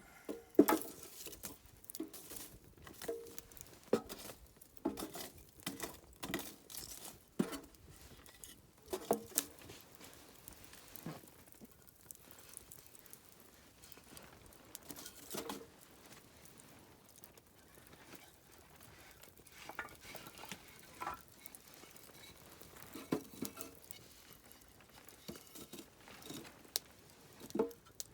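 Irregular light knocks, clinks and rustling of small objects being handled. They come in frequent bursts at first, fall quiet for several seconds midway, then return in scattered groups.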